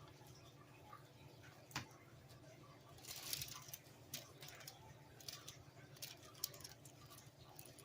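Faint handling noises: a few light clicks and a short rustle, over a low steady hum.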